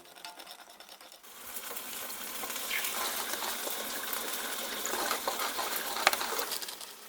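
Food sizzling in a frying pan, starting about a second in and crackling steadily, with a sharp click near the end.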